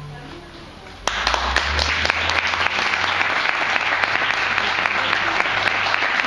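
The music's last note dies away, then about a second in an audience starts applauding, steady clapping that carries on.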